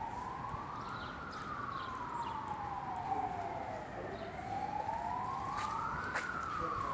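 Siren wailing: one tone rises quickly and then falls slowly, twice, over a low background rumble.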